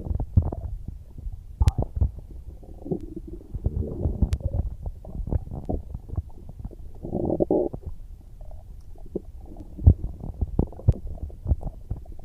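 A hungry person's stomach growling and gurgling: irregular low rumbles broken by sharp little pops, swelling louder about seven seconds in.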